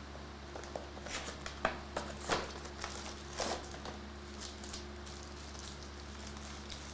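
Plastic packaging crinkling and tearing as a trading-card box or pack is unwrapped: a quick run of crackles and small snaps over about three seconds, loudest about two seconds in, over a steady low hum.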